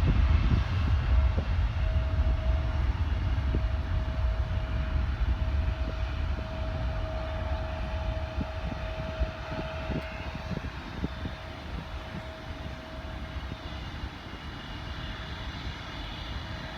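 Jet airliner engines rumbling and slowly fading as the aircraft moves away, with a steady whine held through most of it.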